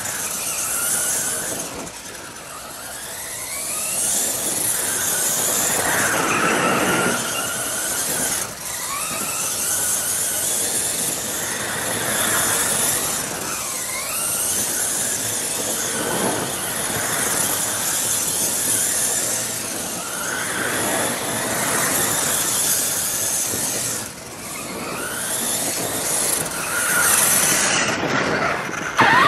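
1/8-scale 4WD RC monster truck driving around: its drive whine glides up and down in pitch again and again as it speeds up and slows, over a steady hiss of tyres on loose gravel.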